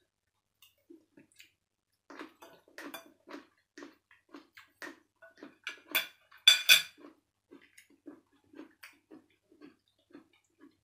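Close-up eating sounds: chewing and lip-smacking in short, regular pulses, with a spoon and fork clinking and scraping on a ceramic plate, the loudest clinks about six to seven seconds in.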